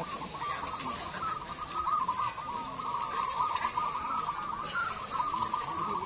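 Many caged zebra doves (perkutut) cooing at once, their calls overlapping into a continuous, warbling chorus around one pitch.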